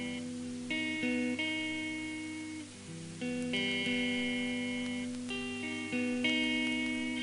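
Slow guitar intro from a heavy metal demo recording: ringing chords, a new one struck every second or two and left to fade.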